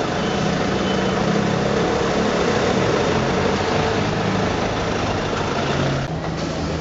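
Ferrari 599 GTO's 6.0-litre V12 idling steadily, a low even hum over street noise; the sound shifts slightly about six seconds in.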